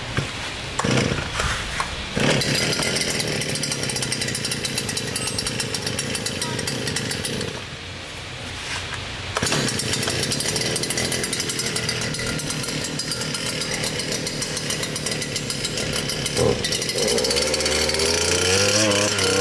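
Stihl FS250 brushcutter's two-stroke engine pull-started: a couple of quick pulls, then it catches about two seconds in and runs fast. It eases off briefly, runs on, and is revved up and down near the end.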